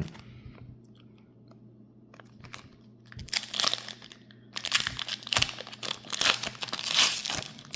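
Foil Pokémon booster pack wrapper being crinkled and torn open, starting about three seconds in and loudest in the second half.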